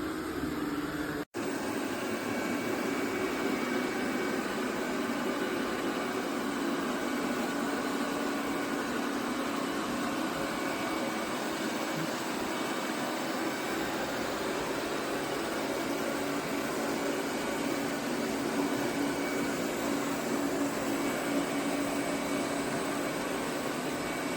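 eufy RoboVac 11S Max robot vacuum running: a steady whir of its suction fan with a low hum and a faint high whine. The sound cuts out for an instant about a second in.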